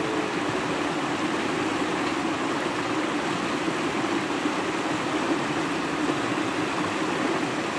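Shallow river rushing steadily over and around rocks, an even, unbroken water noise.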